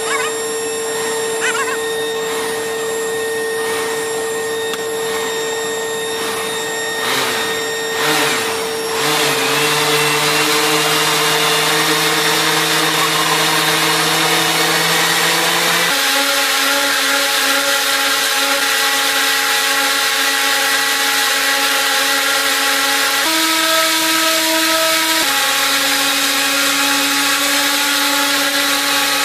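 Airbus A320 ram air turbine test: a steady machine whine with hiss from the RAT and its hydraulic test rig. About a third of the way in the pitch dips and settles into a lower, louder hum. The tone steps to a new speed about halfway through, shifts briefly again near the end, then returns.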